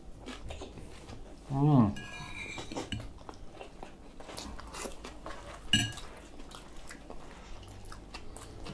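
Metal spoons and forks clinking and scraping on ceramic plates and a soup bowl during a meal, as small scattered clicks. About a second and a half in there is a short falling vocal sound from one of the diners, the loudest moment, and near six seconds a sharper ringing clink.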